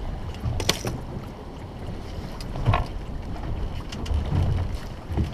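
Wind rumbling across the microphone on a small boat at sea, with water against the hull and a few sharp knocks, one about a second in and one near the middle.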